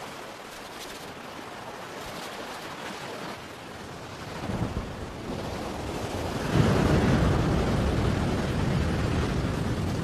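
Tropical storm building: a rushing noise of wind and rain grows louder, and a deep rolling rumble swells about halfway through and stays loud.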